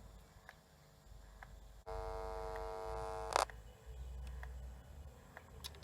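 Sony WM-D3 Walkman cassette mechanism under a low hum, with faint regular clicks about once a second. About two seconds in, a steady whine of several tones starts suddenly and is cut off by a sharp click a second and a half later, followed by a quieter run of the mechanism.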